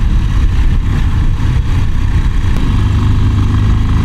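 Motorcycle engine running steadily while riding along a street, with a low rumble of wind and road noise on the microphone.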